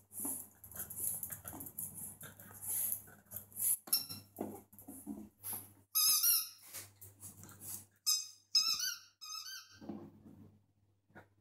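French bulldog puppy whining in short, high-pitched wavering squeals, once about six seconds in and in a run of several just after eight seconds, as it begs the cat to play. Before that there is scuffling with clicks.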